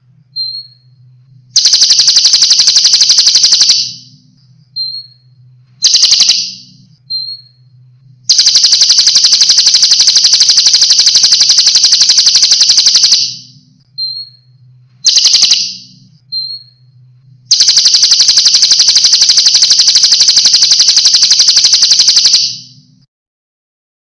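A songbird's fast rolling trill in repeated bursts: three last about two to five seconds and two are under a second, and each one is led in by a brief thin whistle. It is the long rolled, rapid-fire song used in a birdsong tutoring recording for cage birds.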